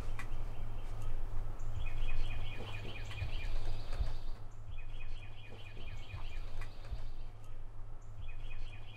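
A bird singing rapid trills of repeated chirps, three bouts about two seconds apart, over a steady low rumble.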